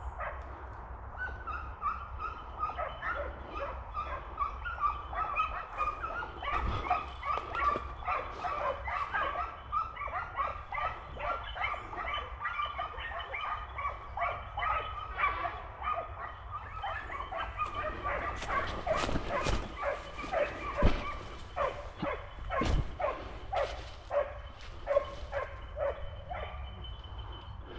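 A pack of hunting dogs barking and yelping continuously, many short overlapping calls, as they bay on a wild boar in thick brush. A few sharp clicks or knocks stand out about two-thirds of the way through.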